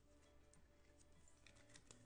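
Near-silent room tone with a few faint clicks and taps of a trading card in a clear plastic top loader being handled.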